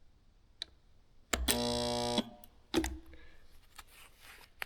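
HTP QuickSpot 2 resistance spot welder firing a weld on bare aluminum sheet: a click, then a steady electrical buzz that starts suddenly and lasts about a second, followed by a clunk.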